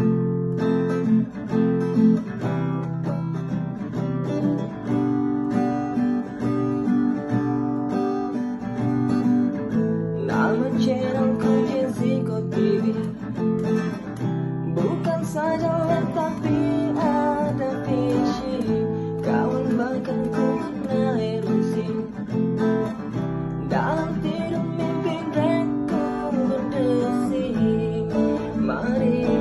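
Music: acoustic guitar strumming chords, with a wavering melody line joining about ten seconds in.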